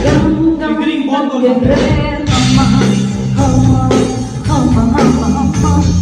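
Loud party music with singing over a steady beat; the bass drops out for a moment about a second in and comes back.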